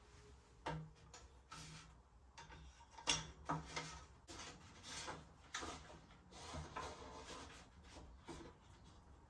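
Scattered light knocks, scrapes and rubs of a bicycle fork's steerer tube being slid up into the frame's head tube, with the sharpest knock about three seconds in.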